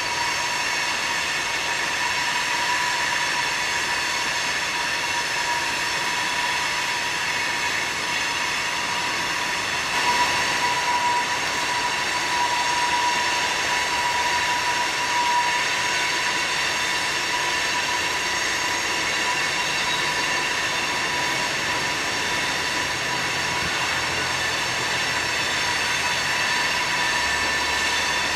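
Loaded coal hopper cars rolling past with loud flange squeal, the wheels screeching against dry rails on the curve: several steady high-pitched tones held over the rumble of the train, slightly louder partway through.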